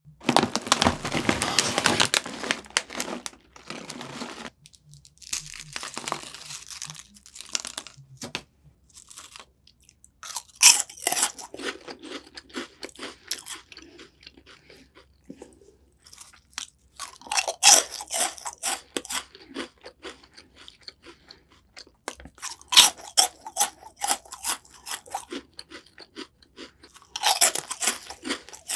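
Plastic snack bag crinkling for the first few seconds, then crisp puffed onion-ring snacks bitten and chewed close to the microphone. Four loud crunching bites, each followed by quieter chewing.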